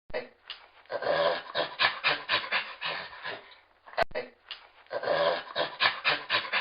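A dog panting rapidly in quick rhythmic breaths, about four or five a second. A sharp click about four seconds in, where the clip restarts and the panting runs again.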